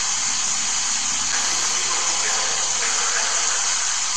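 Standing air cooler's fan blowing with a steady, loud hiss.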